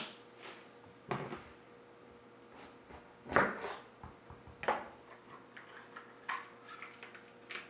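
Kitchen knife cutting a bell pepper on a plastic cutting board: a handful of separate knocks of blade and pepper against the board, the loudest about three and a half seconds in, with a knife being set down near the end.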